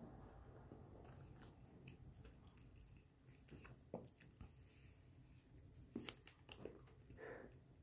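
Faint chewing and mouth sounds of a person eating raw chocolate chip cookie dough, with a few soft clicks, the loudest about six seconds in.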